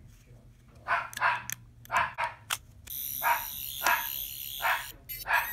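Tenth Doctor sonic screwdriver toy switched on, playing its electronic sound effect: a high, steady buzz that starts suddenly about three seconds in and stops about two seconds later. Through it runs a string of short, sharp sounds about every third to half second.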